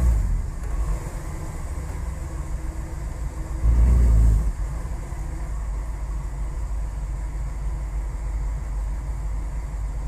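Cadillac DeVille 4.9L V8 idling roughly and stumbling as if about to stall, heard from inside the cabin. A louder surge lasting under a second comes about four seconds in. The engine is running very rich with its MAP sensor unplugged.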